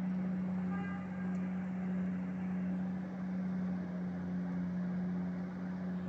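Road-works machinery running with a steady low engine drone over a wash of mechanical noise. A short higher-pitched note sounds about a second in.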